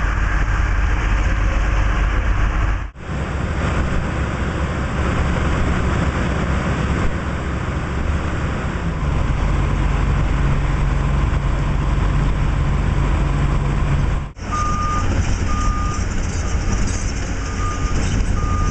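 Excavator diesel engine running with the hydraulics working, with a steadier humming tone in the middle stretch. Twice the sound breaks off for an instant. In the last few seconds a high electronic beeper sounds in short, unevenly spaced beeps, a warning beep of the kind the machine gives when the quick coupler is unlocked.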